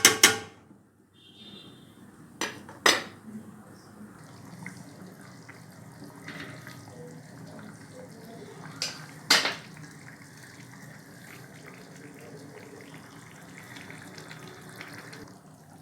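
Metal pots, lids and utensils clinking in a few sharp knocks, two of them in quick pairs, over a steady low hiss of pots cooking on the stove.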